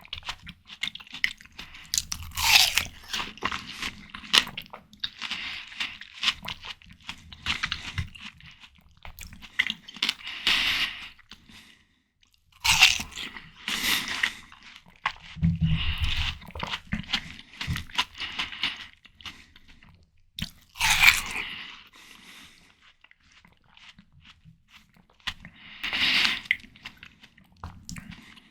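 Close-miked biting into crisp, juicy watermelon and chewing it: wet crunches in bursts, a few sharp bites standing out, with short pauses between mouthfuls.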